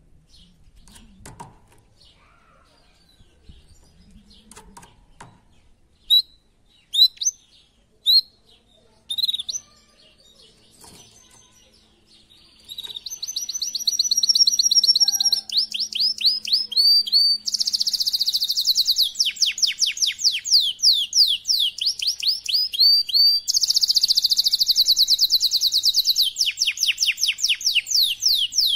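Canary in breeding condition singing: a few separate sharp chirps, then about halfway in a long unbroken song of fast high trills and rolls that changes speed every few seconds.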